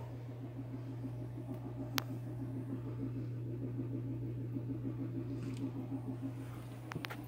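Steady low mechanical hum with a fluttering layer just above it, with a sharp click about two seconds in and a few fainter clicks near the end.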